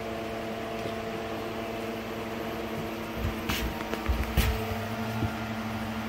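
Blower door fan running with a steady hum while the house is under test. Two short bumps about three and a half and four and a half seconds in.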